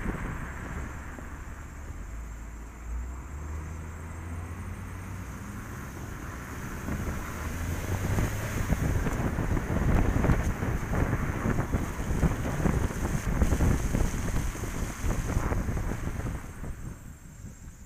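Wind rushing over an outside-mounted camera microphone on a moving Vauxhall Corsa, mixed with the car's low road and engine rumble. It builds up in the middle and dies down near the end.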